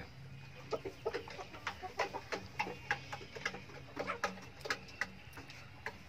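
A flock of Golden Misri and desi hens with roosters clucking softly: short, scattered clucks, a few a second.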